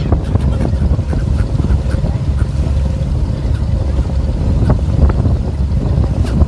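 Boat under way at sea: a steady low rumble of engine and water with wind buffeting the microphone, and a few short seagull calls cutting through now and then.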